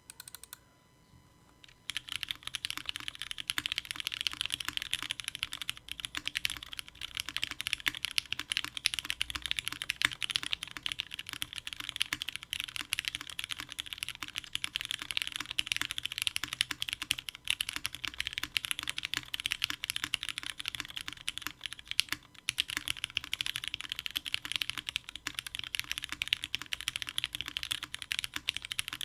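Continuous fast typing on a 60% mechanical keyboard with lubed and filmed Cherry MX Black Hyperglide linear switches in an aluminium top-mount plate, under doubleshot ABS keycaps. The rapid keystrokes start about two seconds in and pause briefly twice.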